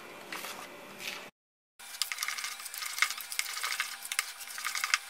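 Wooden spoon stirring carrot cake batter in a bowl, folding in the baking powder: a run of irregular soft scrapes and taps against the bowl, broken by a brief dead gap about a second in.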